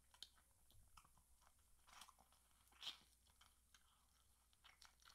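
Faint mouth sounds of a person chewing fried chicken and picking it off a wing bone, with a few short clicks, the clearest about two and three seconds in.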